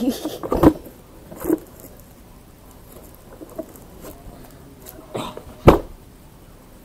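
Handling noise from the camera being moved about: rustling and scattered light knocks. A sharp thump comes a little before six seconds in as it is set down on the floor.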